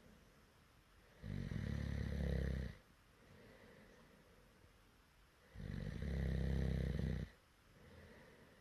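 A person snoring loudly: two long, low, buzzing snores about four seconds apart, each lasting about a second and a half, with quiet breathing between them.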